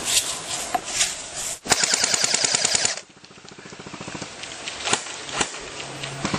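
Airsoft gun firing a rapid full-auto burst of about a second that cuts off suddenly, followed later by two single shots.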